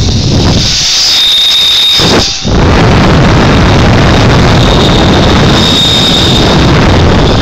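Zip line trolley pulleys running fast along the steel cable with a high, steady whine, under loud wind buffeting the phone's microphone; there is a brief drop just over two seconds in.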